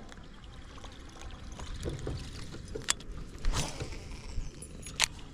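Handling noises in an aluminum jon boat while fishing: a steady low rumble with a few sharp clicks and a knock, the loudest two about three and five seconds in.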